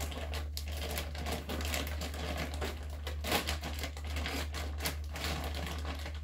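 Clear plastic grow bag crinkling and crackling as it is worked up and pulled free of a colonised sawdust block, with irregular crackles throughout, over a low steady hum.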